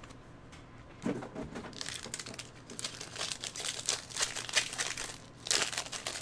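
Foil trading-card pack wrapper crinkling as it is handled and pulled open by hand, a dense run of crackles starting about a second in and loudest near the end.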